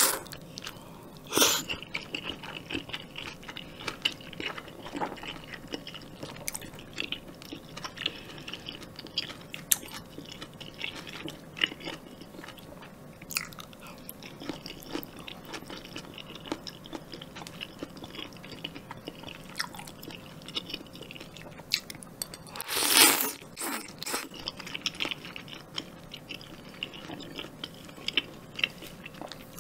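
Close-miked eating of spicy jjamppong: slurping noodles and broth, then chewing with many small wet clicks and smacks and some crunching. One louder slurp, about a second long, comes about two-thirds of the way through.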